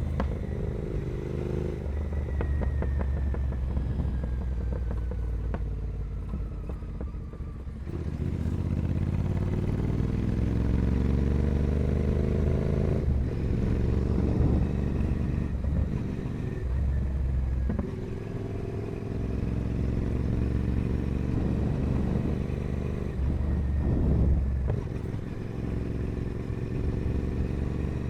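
Royal Enfield Continental GT 650's 648 cc parallel-twin engine breathing through a full 2-into-1 carbon racing exhaust while riding. The revs climb and then drop several times as it shifts through the gears.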